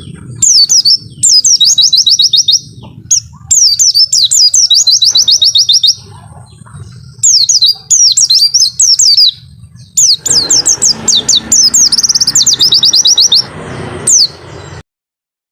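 A pleci (white-eye) singing loud phrases of quick falling whistled notes that run into fast, rattling 'wit-wit' trills, repeated in bursts with short pauses; the song stops suddenly near the end.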